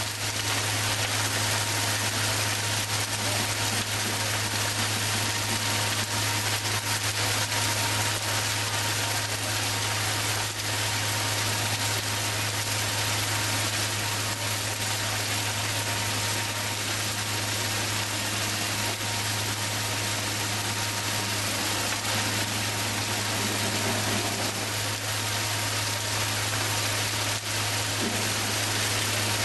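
Large wood bonfire burning: a steady rushing hiss with occasional crackles, over a steady low hum.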